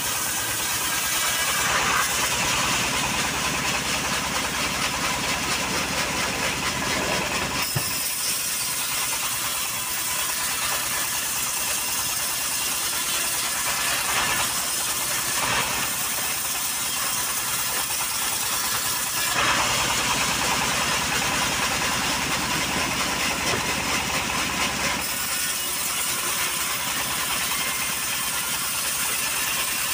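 Homemade band sawmill running steadily, its engine driving a vertical band blade through a johar log. A strong low rumble weakens and strengthens a few times as the cut goes on.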